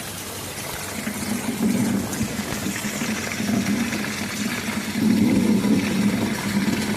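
Steady rain hiss with low rolling thunder that swells and fades several times and is loudest about five seconds in.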